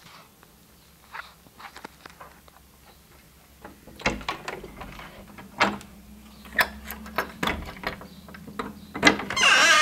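Knocks and clicks of a door being opened and handled, then near the end a baby American robin starts squealing loudly, with rising and falling calls.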